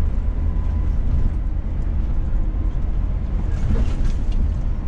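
Steady low rumble of a Scania S500 heavy truck, heard from inside the cab as it rolls down a steep 12% grade: engine and road noise.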